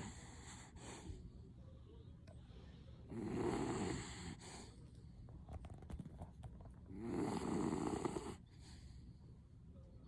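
A 16-year-old beagle snoring in her sleep: two long snores about four seconds apart, each lasting about a second and a half, with the end of another right at the start.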